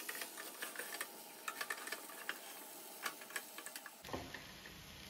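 A spoon stirring rice and chicken in a pressure cooker, with irregular light scrapes and clicks against the pot. It stops about four seconds in.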